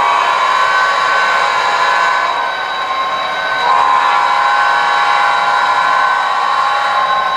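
HO scale model freight train of tank cars rolling past on the layout track: a steady whirring rush with several high held tones, which shift in pitch once near the start and again about four seconds in.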